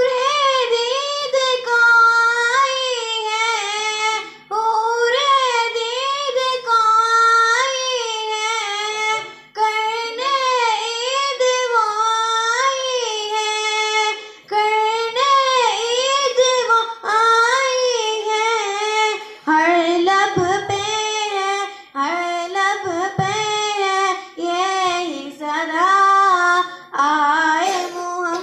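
A girl singing a naat, a devotional poem in praise of the Prophet Muhammad, solo and unaccompanied into a microphone. She sings melodic phrases a few seconds long, with short breaths between them.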